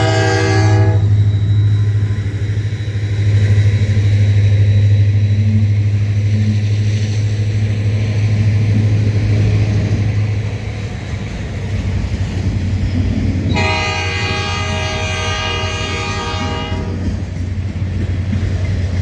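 Diesel freight locomotive sounding its multi-chime air horn, one blast ending just under a second in and a second long blast from about 13.5 to 17 seconds, over the steady low drone of its diesel engine as the train passes.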